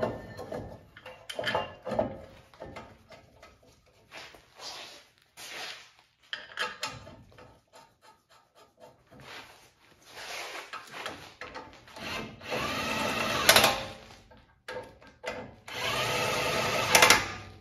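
Brake caliper mounting bolts being run in with a handheld power tool. Light metallic clicks and taps come first, then two runs of the tool of about a second and a half each, one per bolt, each ending in a sharp click as the bolt seats.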